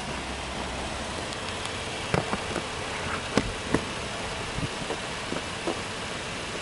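Subaru Legacy B4 3.0R's 3.0-litre flat-six idling steadily. A handful of short sharp clicks sound over it in the middle of the stretch.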